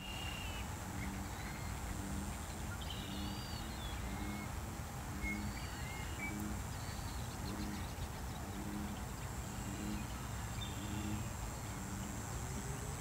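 Several birds calling with short chirps and whistled notes over a frog croaking low, about once a second. A thin steady high tone runs behind them.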